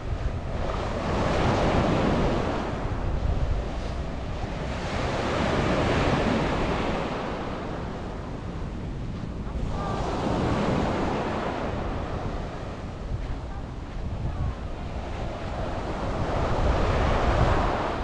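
Small sea waves breaking and washing up a sandy beach, the surf swelling and ebbing about four times, with wind rumbling on the microphone.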